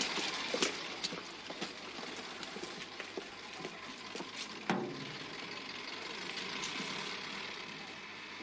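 An old saloon car's engine idling, with scattered footsteps and one thud about halfway through as a car door shuts.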